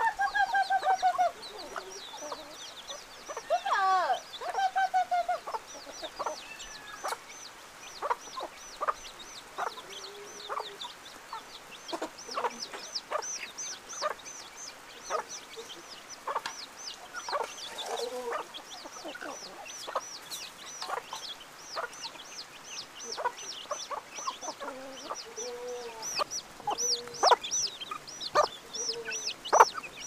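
A flock of domestic chickens clucking while they peck at scattered grain, with young chicks peeping constantly in high, rapid notes. A few louder, drawn-out calls come from the adult birds in the first five seconds.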